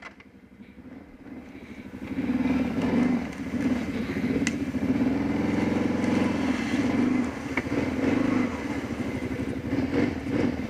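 An ATV's engine running under load as the quad and its winch cable pull a small fallen tree off the trail. It comes in about two seconds in and picks up in pitch around the middle.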